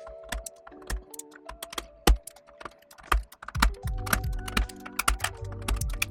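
Sharp, irregular plastic clicks and snaps of mechanical keyboard switches being pried out of a hot-swap plate with a switch puller, over background music.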